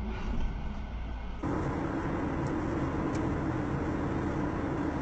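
Steady road and engine noise of a car driving. About a second and a half in, it switches abruptly to a different, slightly louder steady drone, as at a cut between two clips.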